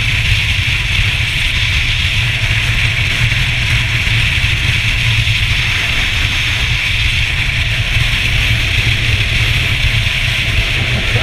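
A steady, loud rumble with a hiss above it; no coughing is heard.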